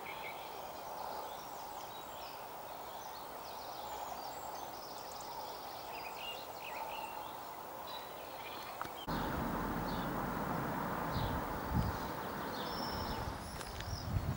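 Wild birds singing and chirping over a steady outdoor hiss. About nine seconds in, the sound changes abruptly and an uneven low rumble joins it.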